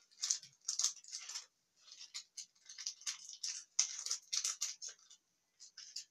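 Small plastic packet crinkling and rustling as it is handled and opened: a quick, irregular series of short crackly rustles with brief pauses.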